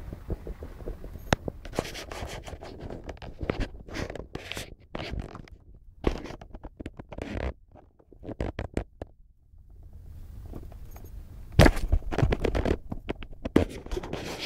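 Irregular scratching and scraping with sharp knocks, coming in uneven bursts with a near-quiet gap about two-thirds of the way through.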